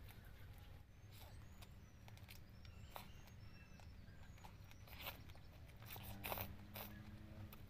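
Faint eating sounds of a person chewing and slurping steamed sweet potato leaves by hand: soft wet mouth clicks, loudest about five and six seconds in, over a low steady hum.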